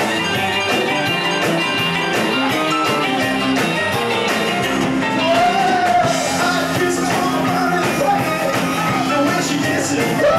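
Live rock and roll band playing: electric guitars, electric bass, drum kit and electronic keyboard, with a steady driving beat.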